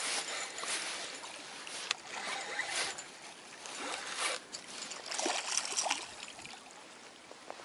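Spinning reel being cranked in irregular rasping spells as a hooked pike is reeled in, with the fish splashing at the surface near the bank in the last seconds.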